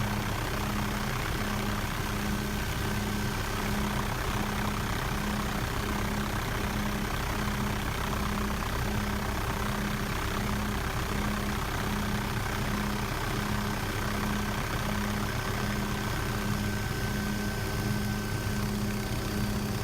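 A steady engine drone with a low hum that pulses evenly about twice a second.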